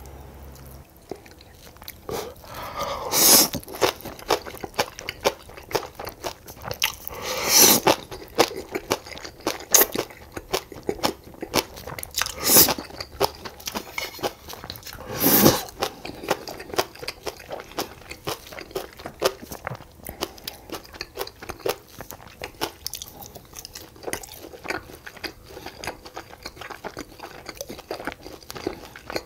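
Someone biting and chewing crunchy food: a run of sharp crunches and chewing, with four loud crunchy bites about 3, 8, 12 and 15 seconds in.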